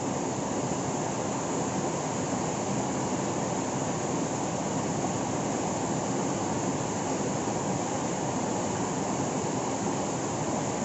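Steady rush of a river spilling over rocks in a small cascade.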